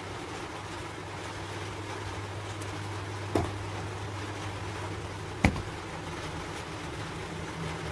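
Two short, sharp clicks about two seconds apart from plastic beads and cords being handled during bead weaving, over a steady low hum and background hiss; the hum stops at the second click.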